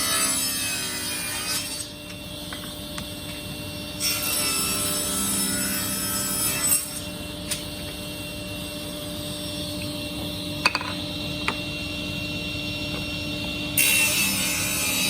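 Power saw running steadily and cutting wood in three passes: one at the start, a longer one a few seconds in, and another near the end. A few small knocks come in the quieter stretch between cuts.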